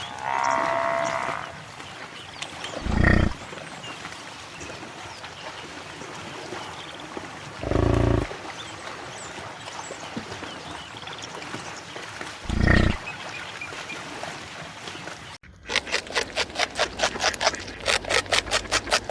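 A large animal's deep call, heard three times about five seconds apart, over a steady outdoor background. After a cut near the end, a different sound starts: a fast, even series of pulses, about four or five a second.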